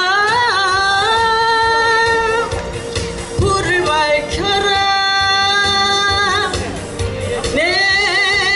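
A woman singing a Korean song through a stage microphone over a backing track, holding long notes of about two seconds each with a short upward slide into each one.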